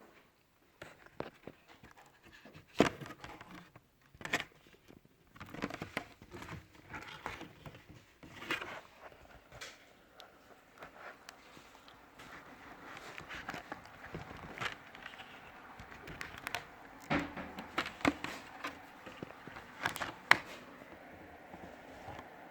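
Hands working on a laptop's screen assembly: irregular sharp clicks and taps of plastic parts being handled and pried, with rustling and scraping in between.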